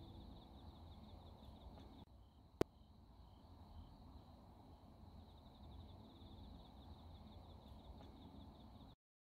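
Near silence: faint low background noise with a faint, high, rapidly pulsing trill, and one sharp click about two and a half seconds in. The sound cuts off just before the end.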